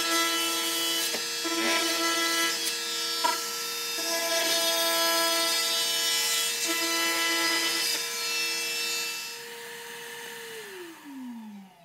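Cordless oscillating multi-tool cutting slots in drywall, its buzz breaking off and starting again between cuts, over the steady whine of a Milwaukee Packout wet/dry vacuum drawing air through the Air-Tip dust collector. Near the end the cutting stops and the vacuum is switched off, its whine falling in pitch as the motor spins down.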